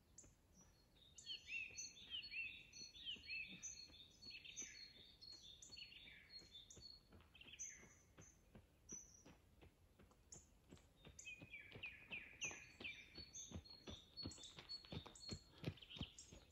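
A songbird singing two bursts of short phrases made of repeated falling chirps. Over the second half, footsteps on gravel come closer, a runner's quick strides at about three a second, growing louder toward the end.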